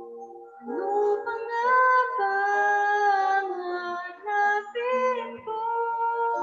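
A young woman singing a slow song, holding long notes; her voice slides up into a note about a second in.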